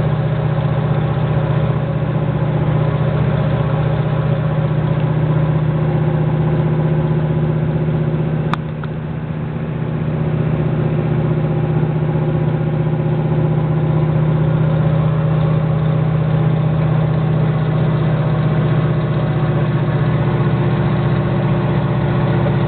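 An IDI diesel pickup's engine running steadily under load as the truck climbs a long grade, heard from inside the cab. About eight and a half seconds in there is a click and the engine sound briefly drops, then it picks back up.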